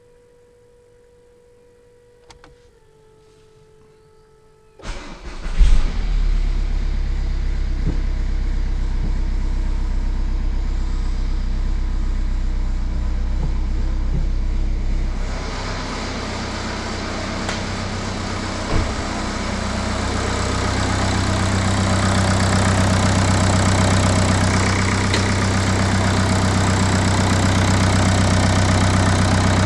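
Renault Clio 4's 1.5 dCi four-cylinder diesel engine started for the first test run after a timing-belt replacement: a click, then it cranks and catches about five seconds in and settles into a steady idle. In the second half it is heard at the open engine bay, brighter and a little louder.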